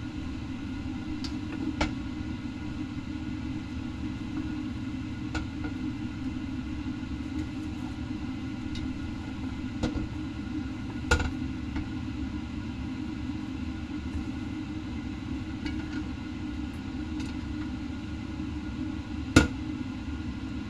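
Wooden spatula and chopsticks knocking now and then against a stainless steel wok while noodles are stir-fried, over a steady low rumble. A few sharp knocks stand out, the loudest near the end.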